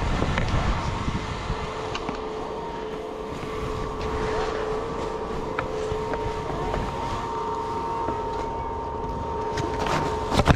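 Skis sliding over snow with wind on the camera's microphone, and a faint steady two-tone hum underneath. Near the end a sharp knock and rustling as the camera is covered by a jacket.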